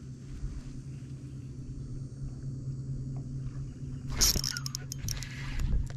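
A steady low hum runs throughout while a hooked spotted bass is played on a spinning rod. About four seconds in comes a sudden loud splash-like burst, followed by a few sharp clicks.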